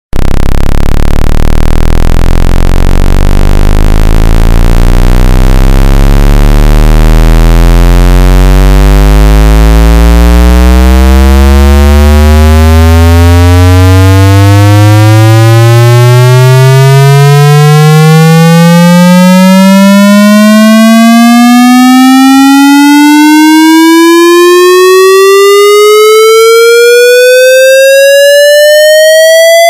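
Loud electronic tone with many overtones, rising slowly and steadily in pitch from a deep hum to a high whine: a synthesized pitch sweep.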